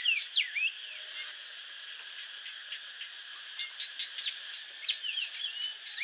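Cicadas droning steadily, with birds chirping over them: a quick run of short calls near the start and many more through the second half.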